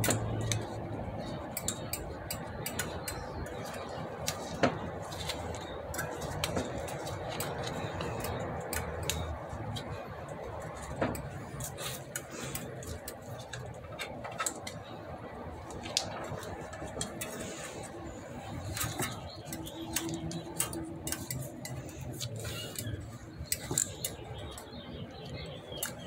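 Steel bicycle spokes clicking and ticking against each other as a replacement spoke is worked in and around the laced spokes of a rear wheel. There are many small, irregular clinks throughout.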